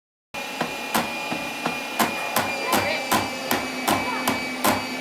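Electric 1.5 HP meat grinder running, a steady motor hum with a regular sharp knock about three times a second, as the auger turns with the batch nearly run out. The sound cuts in abruptly just after the start.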